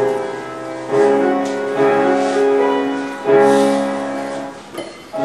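Piano music: slow held chords, with a new chord struck every second or so.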